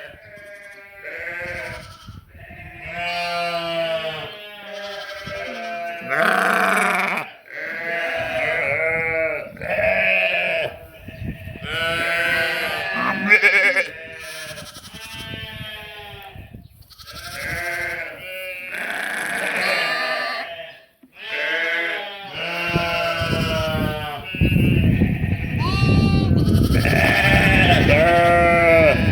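Sheep and lambs bleating, one call after another, some high and some lower. Near the end a low rumbling noise comes in under the calls.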